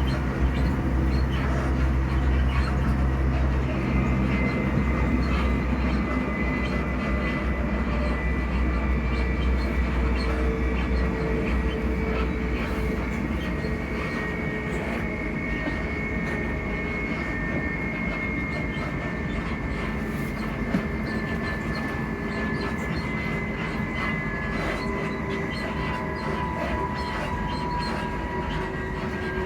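Class 334 electric multiple unit's traction motors humming while the train runs along the track, heard on board over the rumble of the wheels. Several whining tones slowly fall in pitch through the second half as the train eases its speed, and the deep rumble lessens after about twelve seconds.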